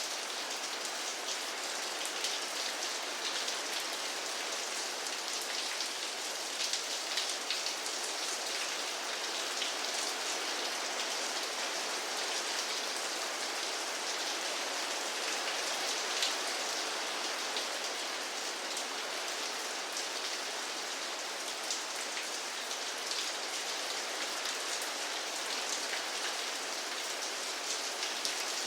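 Steady rainfall, with a dense patter of individual drops striking a surface over a continuous hiss.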